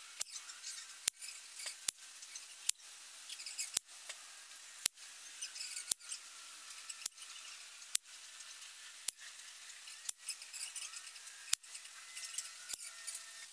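Air rifle pellets striking a card target and its backstop: a run of sharp clicks, roughly one a second, over a faint steady hiss.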